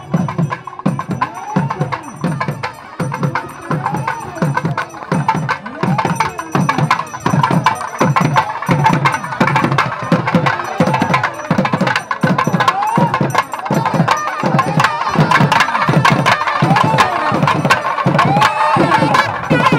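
Temple festival music: fast, steady drumming with a melody over it, growing louder and busier about halfway through.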